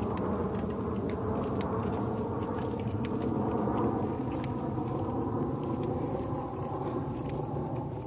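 Footsteps on a plank boardwalk, heard as light irregular clicks and scuffs, over a steady low rumble.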